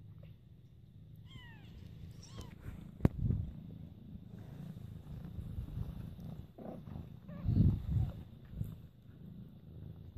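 Cat purring, a steady low rumble, with a few short high falling squeaks a second or two in, a sharp knock about three seconds in and louder bumps near eight seconds.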